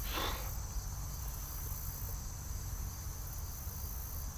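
Steady high-pitched chirring of insects, with a low steady rumble underneath and a brief soft rustle right at the start.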